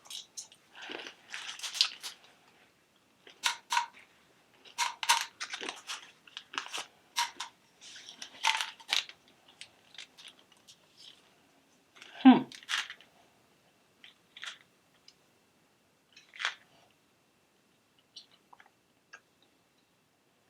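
Chewing a mouthful of five Skittles, the candy shells crunching in quick crackly bursts that come thick at first and thin out over the second half, with one louder, lower sound about twelve seconds in.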